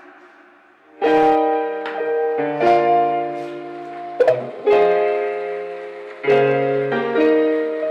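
Piano music played through a JBL Pulse Bluetooth speaker, starting about a second in with held chords that change every second or so.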